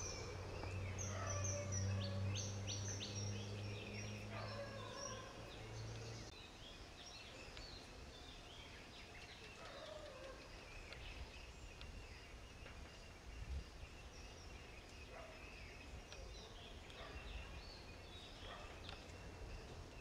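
Outdoor ambience with many birds chirping and calling in short high notes. A low steady hum sounds for the first several seconds and stops about six seconds in.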